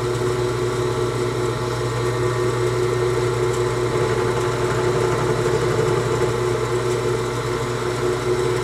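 Small bench machine's electric motor and spindle running steadily with a constant hum, an end mill taking a light cut on a small pin held in a vise.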